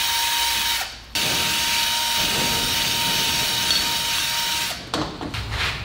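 Cordless drill spinning a wire cup brush inside a steel wheel hub's bearing bore, scouring out rust and grime before new bearing races go in: a steady motor whine over a harsh scratchy hiss. It stops briefly about a second in, starts again, and stops near the end.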